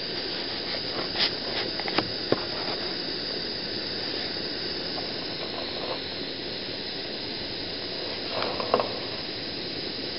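Gas burner of a scratch-built model steam boiler firing, a steady hiss of gas and flame, with a few light ticks over it.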